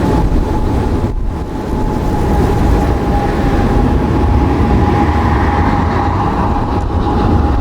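Boeing 787 jet engines at high thrust during a go-around: a deep, continuous rumble with a steady whine above it, mixed with wind noise on the microphone.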